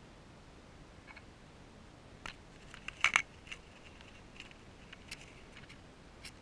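African grass rat nibbling at a GoPro's plastic housing: scattered sharp clicks and scrapes, loudest in a quick cluster about three seconds in.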